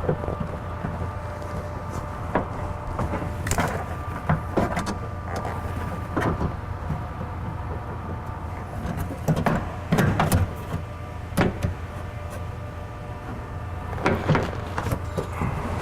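Irregular clicks and knocks of metal parts being handled and fitted inside a car door while a power-window regulator is installed, over a steady low hum.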